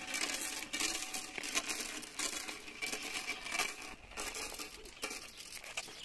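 A well rope being hauled up with its bucket: a continuous crackling, rubbing rustle of rope over the well's rim, with small clicks and clinks throughout.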